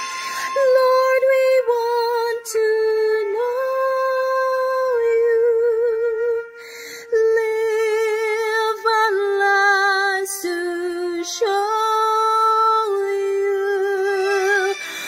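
A woman singing a slow worship song solo, holding long notes with vibrato, with short breaks between phrases.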